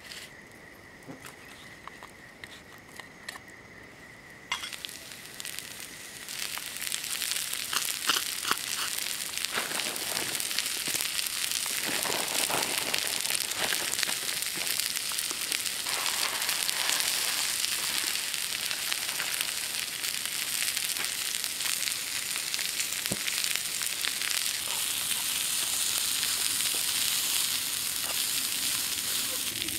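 Broccoli and capsicum frying in oil in a small pan on campfire coals. The sizzle starts about four or five seconds in, builds within a couple of seconds and holds steady and loud, with scattered clicks as the vegetables are stirred. Before it starts, a steady high insect trill is heard.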